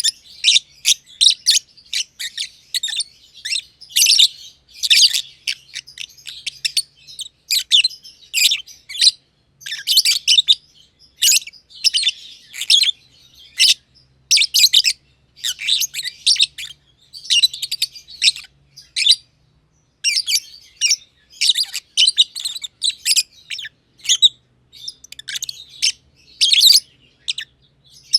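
Masked (personata) lovebirds chirping: rapid, high-pitched chirps in quick bursts with only short pauses, and a brief lull about twenty seconds in.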